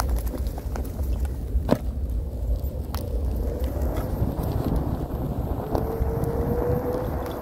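Floatwheel ADV one-wheeled electric board rolling over grass and then pavement: a steady low rumble of the tyre with a few sharp clicks, a strong one about two seconds in. Near the end the hub motor's faint whine grows and rises slightly in pitch.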